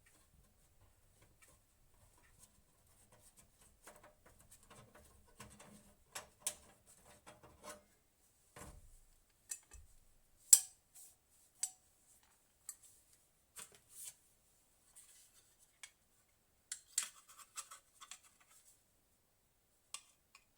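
Hands handling small hard objects, making scattered light clicks, taps and scrapes, with one sharper click about halfway through.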